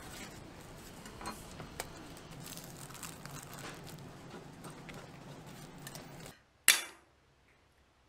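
Small clinks and scrapes of metal candy-making tools on the counter, then one sharp, loud clink with a short ring about six and a half seconds in.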